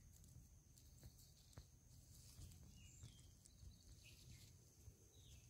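Near silence: faint background noise with a thin, steady high whine, a few soft ticks and a few brief faint chirps.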